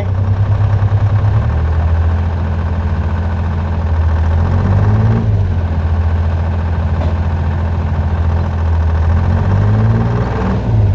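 Heavy equipment engine running steadily, picking up speed briefly twice, about four seconds in and again near the end, as the machine is worked.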